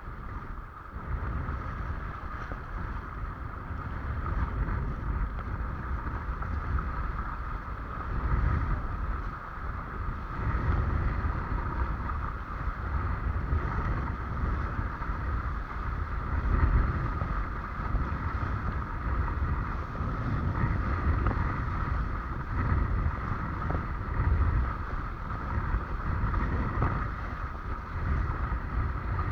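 Wind buffeting the microphone in uneven gusts, with a steady higher hiss beneath it, as from a camera on a windsurfer out on the water.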